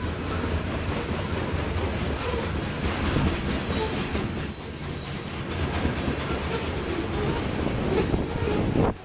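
Freight train of covered grain hopper cars rolling past close by: a steady rumble and rattle of steel wheels on the rails.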